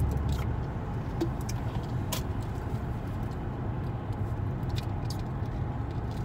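Steady low rumble of a car's engine and road noise heard inside the cabin while driving, with a few faint light clicks.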